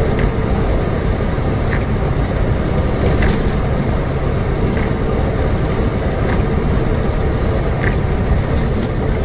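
Steady road and engine noise of a moving car, a low rumble with a few faint ticks.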